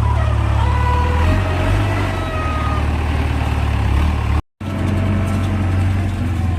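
Diesel engine of a JCB 3DX backhoe loader running steadily with a deep rumble while loading sand, with a few faint higher tones over it. The sound drops out for a split second about two-thirds of the way through.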